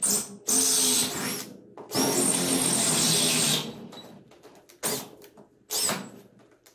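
Cordless drill boring into a 1-inch-thick wooden workbench top, run in several bursts: two longer runs in the first half, the second with a whine that rises as the motor spins up, then two short trigger blips near the end.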